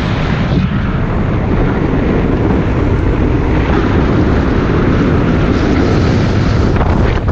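Loud, steady rush of wind on the on-board camera's microphone, mixed with the rolling rumble of a street luge's wheels on asphalt at speed downhill.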